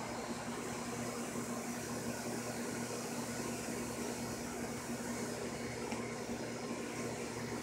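A steady machine hum with a constant hiss, unchanging throughout.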